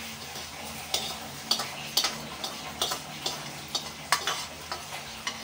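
A metal spoon clicking and scraping against a steel plate in irregular sharp strikes, about two a second, as freshly roasted spices and dried red chillies are tipped out to cool. A gas burner hisses faintly and steadily underneath.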